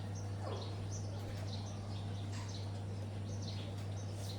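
Small birds chirping faintly, in short scattered high notes, over a steady low hum.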